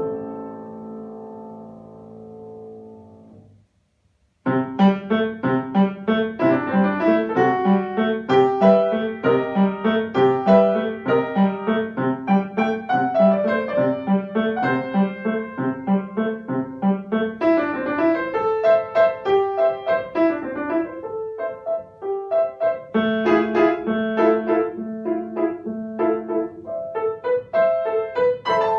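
Grand piano: a held chord rings and dies away, then after a brief silence a brisk passage of quick, separate notes begins about four and a half seconds in and carries on.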